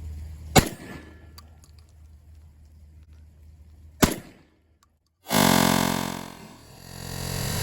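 Two shots from a VEPR-12 semi-automatic 12-gauge shotgun, about three and a half seconds apart, the first the louder; the can on its muzzle is a fake silencer, so the shots are unsuppressed. Music starts abruptly about five seconds in.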